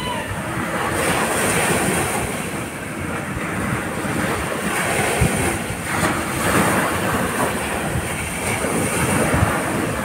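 Small sea waves breaking and washing up a dark sand beach, a steady rush of surf that swells and ebbs, with wind rumbling on the microphone.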